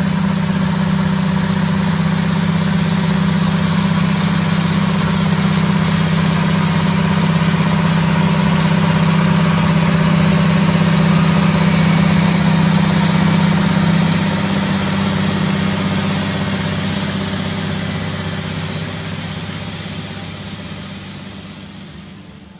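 John Deere 8530's 9.0-litre six-cylinder diesel working under load as it pulls a seed drill, a steady deep drone. It grows louder as the tractor passes close about halfway through, then fades steadily as it draws away.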